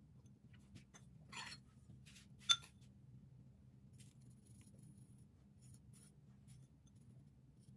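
Metal spoon scraping through a ceramic bowl of speculoos crumbs, then one sharp ringing clink of the spoon against the bowl about two and a half seconds in, followed by faint light ticks as the crumbs are spread.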